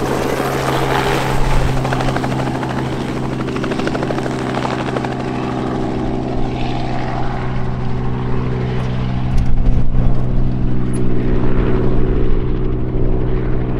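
Robinson R44 helicopter in flight just after takeoff: the steady beat of its two-blade main rotor over the drone of its six-cylinder Lycoming piston engine. Near the end the higher sounds fade as it moves away.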